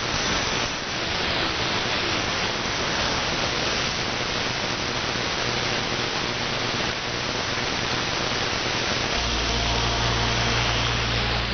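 AM radio static and hiss from an online SDR receiver tuned between broadcast stations. About nine seconds in, a steady low hum comes in under the hiss.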